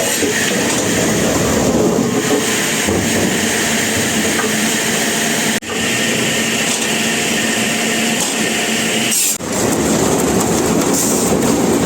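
Sawmill machinery running loud and steady while a saw cuts timber, broken by two sudden brief drops about five and a half and nine seconds in.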